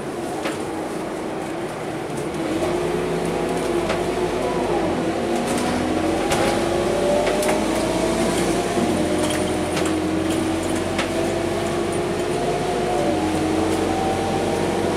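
Scania K230UB city bus's diesel engine and automatic gearbox, heard from inside the saloon as the bus pulls away and accelerates. It gets louder about two and a half seconds in, with a whine that rises steadily and drops back a few times at the gear changes, and scattered light rattles.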